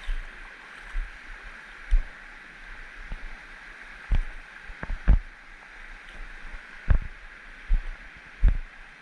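Low thuds of a hiker's footsteps, irregularly about once a second, over a steady high hiss.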